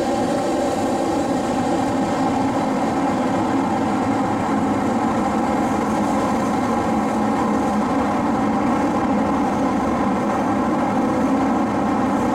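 Steady running noise inside an SMRT C151 train carriage moving through a tunnel: a continuous rumble of wheels on rail and running gear, with a faint steady hum over it.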